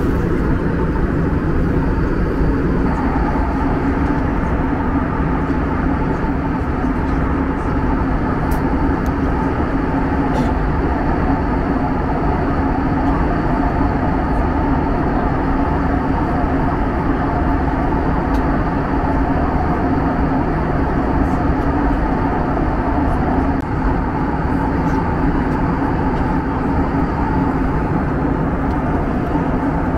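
Steady cabin noise of an Airbus A321 airliner in cruise flight: an even rush of jet engines and airflow with a low drone, unchanging throughout.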